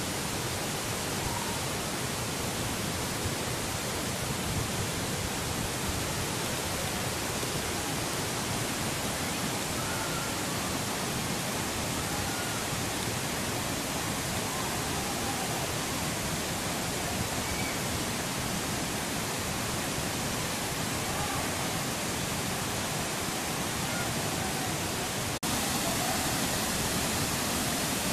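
Steady rushing of a large curtain waterfall, Tinuy-an Falls, a dense even noise with no distinct events. It breaks off for an instant about 25 seconds in and comes back slightly louder.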